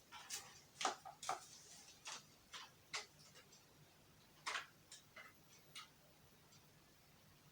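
Faint, irregular light clicks and taps, about a dozen, from an HDMI cable being handled and its plug fitted into a port.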